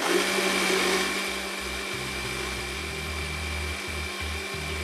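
Countertop jug blender switched on and running steadily, puréeing cooked carrot soup: a steady motor hum with a thin high whine above it.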